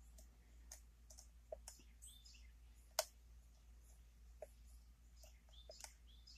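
Faint metallic clicks and light scraping of a lock pick and tension wrench working the pins inside a challenge lock during single-pin picking, with one sharper click about three seconds in.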